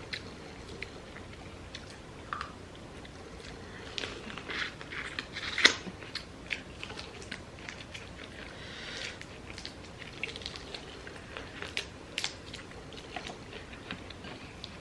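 Close-up eating of a seafood boil: chewing and biting with many small wet clicks and crackles, and one sharper crack about six seconds in.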